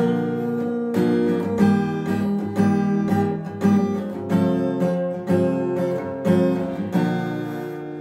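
Acoustic guitar strummed alone, chords struck about once a second; near the end the last chord is left to ring and fade.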